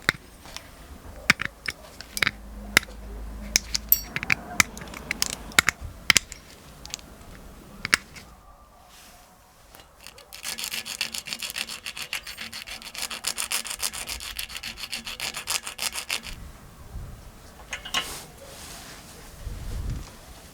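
Scattered light clicks and taps for the first several seconds. After a short pause comes about six seconds of rapid back-and-forth rasping strokes, a hand abrasive tool working a metal coin blank.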